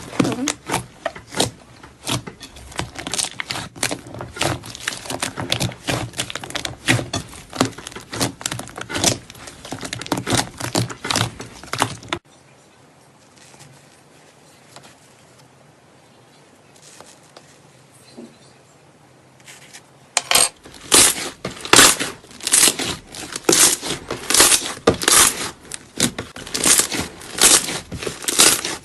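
Slime being squeezed and worked by hand, giving dense, irregular crackling clicks and pops. About twelve seconds in it drops abruptly to a faint hush for some eight seconds, then the crackling comes back louder.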